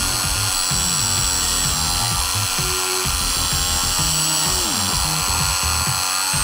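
Background music over a Ridgid cordless reciprocating saw running as its blade cuts through a tree branch.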